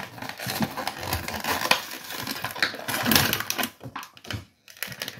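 A diecast model car's plastic blister pack and card backing being pried and torn open by hand, with rapid crinkling, clicking and rustling. It thins to a few separate clicks near the end.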